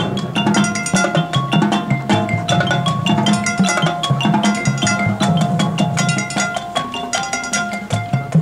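Marching band percussion playing a fast, steady rhythmic passage: quick struck notes from pitched mallet instruments over drums, coming in suddenly and loudly.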